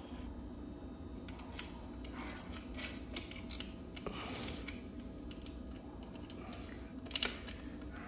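Irregular small clicks and taps of hardware being handled while the battery base is fitted to the e-bike frame, with a louder click about seven seconds in, over a faint steady hum.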